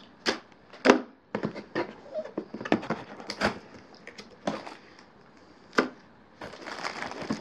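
Hands rummaging in a cardboard box of camcorder accessories: irregular taps, knocks and rustles of cardboard and packaging, turning into a denser crinkling of packaging near the end.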